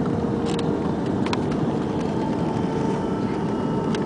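Jet airliner's engines on a landing approach: steady engine noise with a faint high whine held through it, and a few brief clicks.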